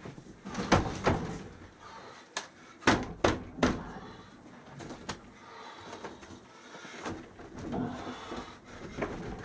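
Scattered knocks, clunks and scraping of a window air conditioner being handled in its window frame, with a cluster of sharper knocks about three seconds in.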